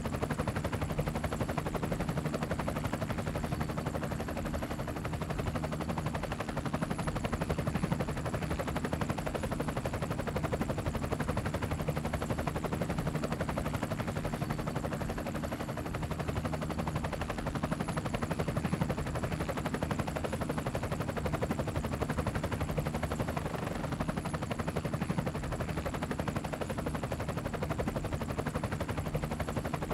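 Multirotor drone's electric motors and propellers buzzing steadily at a constant pitch, with a faint high whine above, heard close up through the drone's own camera microphone.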